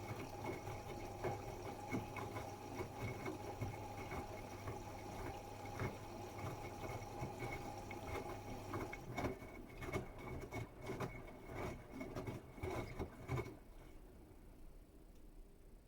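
Bosch Serie 8 WAW32590 washing machine filling with water, a steady hum and rush of inflowing water that stops about nine seconds in. Splashing and clicking go on for a few seconds more, then it goes quiet.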